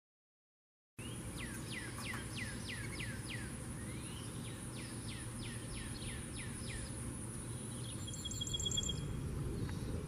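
Wild bird song starting about a second in: two runs of clear whistled notes, each note falling in pitch, then a brief fast trill near the end, over a steady high insect drone.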